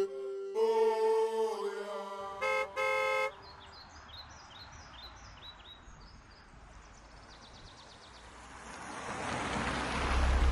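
A car horn sounds twice, a short toot and then a longer one, about two and a half seconds in. Faint bird chirps follow, and near the end a rushing noise with a low rumble swells up.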